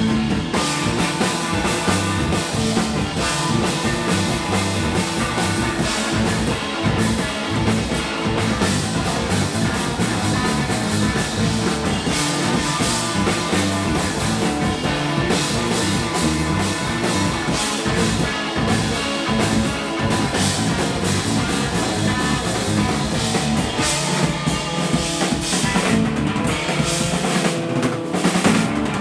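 Live instrumental rock band playing: electric guitar, electric bass and a full drum kit.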